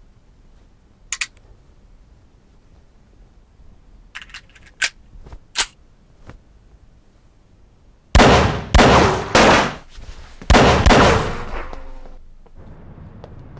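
Pistol shots: a few light sharp clicks, then five loud shots, three in quick succession and two more a second later, each with a ringing tail.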